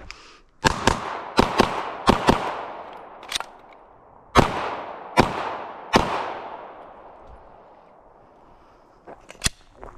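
A string of gunshots in a timed shooting drill: three quick pairs of shots, then after a short pause four more single shots about a second apart, each trailing off in a long echo. A few faint clicks follow near the end.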